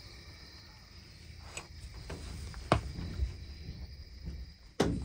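Two sharp knocks about two seconds apart, the second the louder, over low rumbling handling noise, with a faint steady insect drone in the background.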